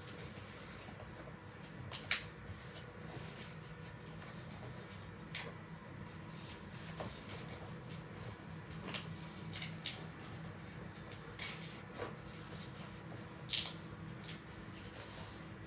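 Rolled paper tubes being handled and fitted together: a scattering of short, light paper rustles and taps over a faint steady hum.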